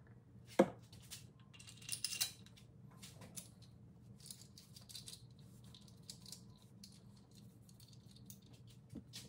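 Light clicks and rattles of small metal engine parts being handled during cylinder-head assembly. There is a sharp click about half a second in and a brief rattle around two seconds in, then scattered faint clinks over a steady low hum.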